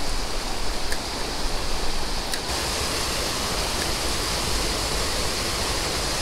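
Water rushing steadily over a small creek spillway, with two brief clicks in the first few seconds.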